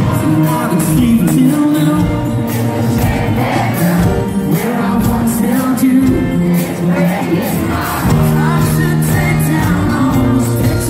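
Live country-rock band playing loudly through a concert PA, heard from the crowd, with electric guitar in the mix.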